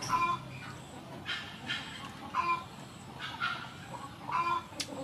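Chickens clucking in a string of short calls, about one a second.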